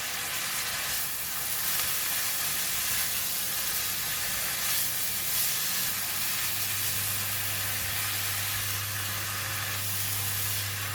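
Bean sprouts and pork slices sizzling in hot oil as they are stir-fried in a pan, a steady hiss. A low hum joins in about six and a half seconds in.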